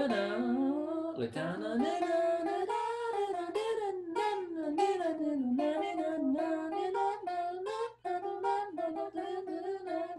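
A voice singing an improvised melody on wordless syllables, its pitch wandering up and down in short phrases, with a brief break about eight seconds in.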